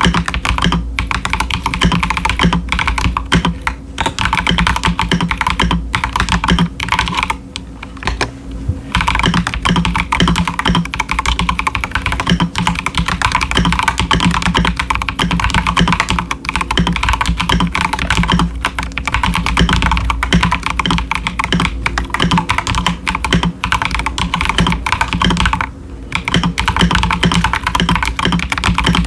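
Fast, continuous typing on an Akko 5075s mechanical keyboard with Gateron Azure Dragon V2 linear switches and doubleshot PBT keycaps in ASA profile, both stock. It pauses briefly a few times.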